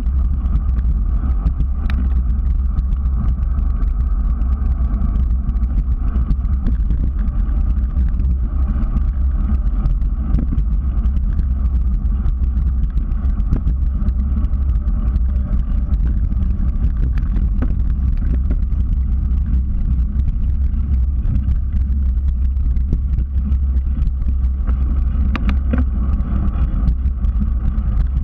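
Steady low rumble of a bicycle riding along a cracked asphalt trail, heard through a bike-mounted GoPro: wind buffeting the camera and tyre noise on the pavement, with a few sharp ticks.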